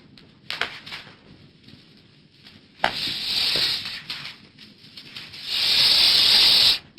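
A bird giving two long, harsh hissing calls, the second louder and cut off sharply, with a few faint clicks before them.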